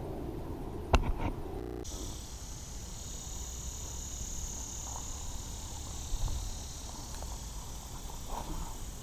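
A sharp click about a second in. From about two seconds in, a steady high-pitched drone of insects starts abruptly and runs on, with a soft thump near the middle.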